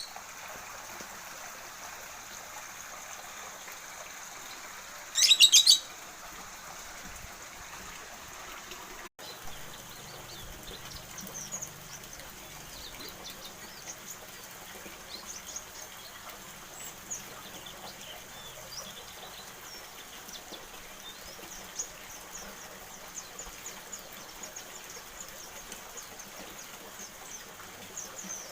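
White-eye (pleci) songbird calling and singing: a loud, rapid trill about five seconds in, then many short, high chirps and twitters scattered over a steady hiss.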